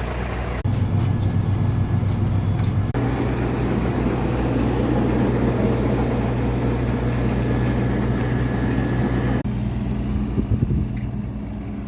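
Heavy diesel engine of a one-metre road planer running steadily, with a rough noise spread above the engine hum, and the sound shifting abruptly a few times.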